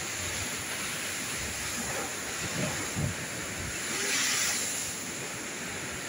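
Heavy surf from a very rough sea breaking against rocky cliffs: a steady wash of breaking waves, with one surge louder about four seconds in. Wind buffets the microphone.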